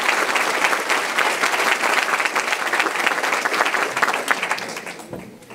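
Audience applauding, a dense patter of many hands clapping that fades and dies away near the end.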